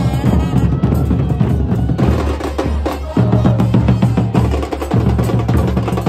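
Bombos (large Argentine bass drums) of a football fan band pounding a fast, steady beat, with other hand percussion.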